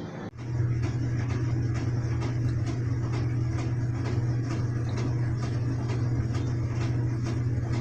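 A steady low mechanical hum, with light ticks repeating about three times a second.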